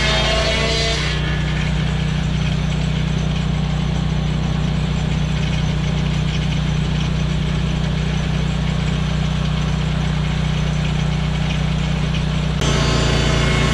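An engine running steadily at constant speed, with a strong low hum; the sound changes abruptly near the end.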